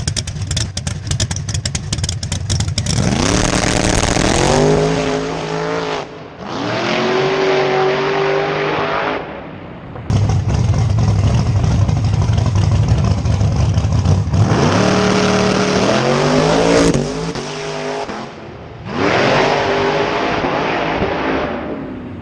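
Turbocharged third-generation Chevrolet Camaro drag car idling roughly on the line, then launching at full throttle: the revs climb, drop at a gear change and climb again as it pulls away. After a stretch of loud, rough engine noise, the same launch with its rising revs and two gear changes is heard a second time.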